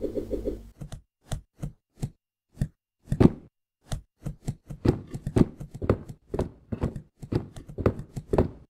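Cartoon sound effects of cardboard boxes being set down and stacked: a series of short, dull knocks and thuds, a few spaced out at first, then coming faster and closer together from about halfway through.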